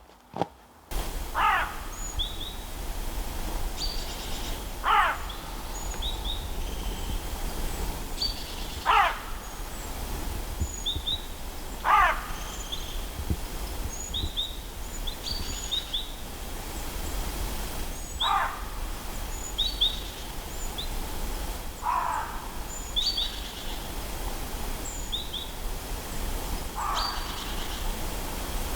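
Wild birds calling outdoors. One bird repeats a loud call that falls steeply in pitch every few seconds, while other small birds give short high chirps, over a steady background rush.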